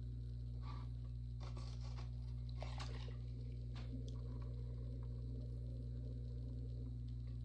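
Short scraping and rubbing sounds of a hand tool and a sponge working a small clay cup on a spinning pottery wheel, clustered in the first four seconds, over a steady low electrical hum.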